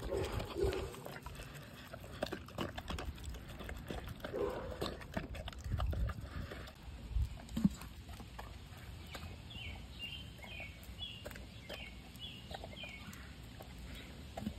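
A dog eating raw food from a metal-lined bowl: wet chewing and licking, with many small clicks and a few low thumps.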